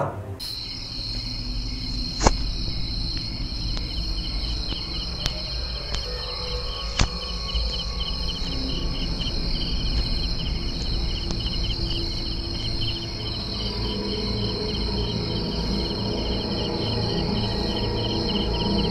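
Crickets and other night insects chirping steadily in a fast pulsing trill over a low rumble, with two sharp clicks about two and seven seconds in.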